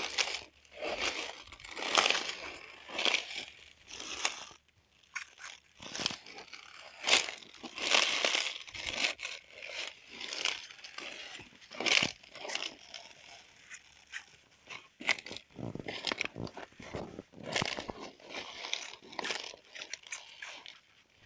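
Irregular crunching and rustling, a few noises every couple of seconds with short pauses between them: footsteps on the soil and brushing through the cabbage leaves as someone walks along the rows.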